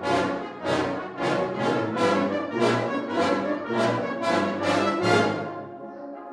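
Brass band playing a run of short, accented full-band chords, about two a second, that give way to softer held notes near the end.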